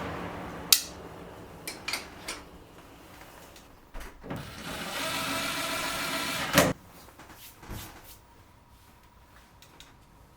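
A series of sharp clicks and knocks, like panels or latches being handled. A steady hum runs for about two seconds in the middle and stops with a loud click.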